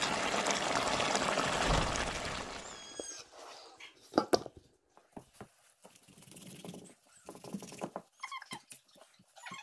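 A pot of fish curry bubbling on the heat, a dense hiss that fades out about three seconds in. Then scattered knocks, with one loud clatter about four seconds in, as raw fish are handled in a steel bowl, and short high squeaks near the end.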